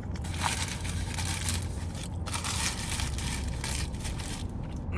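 Close-up chewing of a mouthful of smash burger, a continuous crackly, irregular texture, over a steady low hum.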